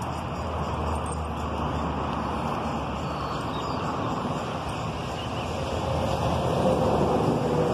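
Steady road traffic noise, a continuous rumble and hiss that swells louder near the end as a vehicle goes by.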